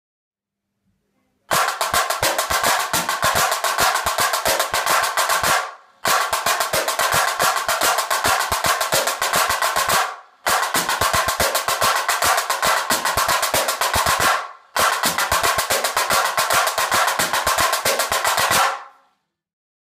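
Snare drum played with RockStix LED light-up drumsticks: fast, dense strokes and rolls in four passages of about four seconds each, each cut off abruptly.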